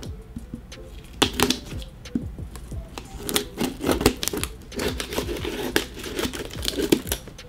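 Scissors cutting packing tape on a cardboard box: irregular sharp snips, scrapes and crinkles of tape as the box is handled.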